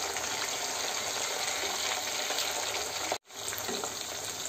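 Chicken pieces deep-frying in hot oil in a kadai, sizzling steadily while they are turned over with a steel ladle. The sound cuts out for a moment about three seconds in.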